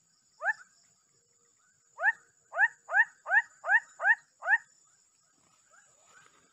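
Animal calls: one short rising yelp about half a second in, then a fast run of seven rising yelps at about three a second, followed by fainter calls.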